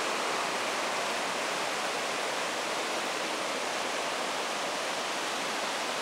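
Whitewater of a steep, rocky stream below the Triberg waterfalls, rushing and splashing over boulders in a steady, even hiss.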